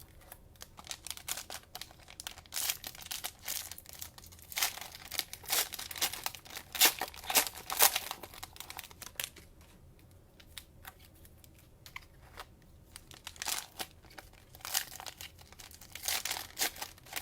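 Cellophane trading-card pack wrappers crinkling and tearing as packs are handled and torn open, in irregular clusters of sharp crackles with a quieter lull past the middle.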